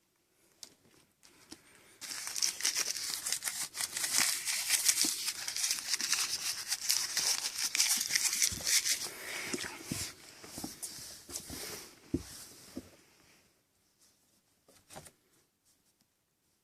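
Kittens scuffling and pouncing in crinkly material: a rapid stream of crinkling and rustling that starts about two seconds in, runs for about eight seconds, then dies away to a few scattered clicks.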